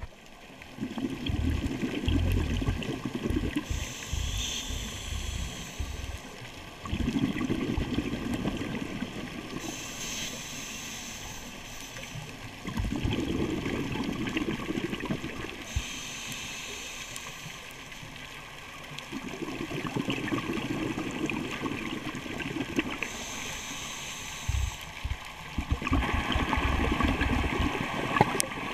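Scuba diver breathing through a regulator underwater: a high hiss on each inhale alternating with a low burble of exhaled bubbles, one full breath about every six seconds.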